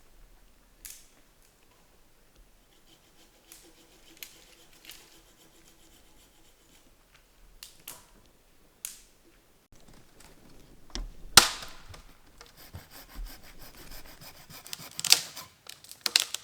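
Scattered knocks, clicks and rustling of things being handled, with a sharp loud knock about eleven seconds in and another loud cluster around fifteen seconds.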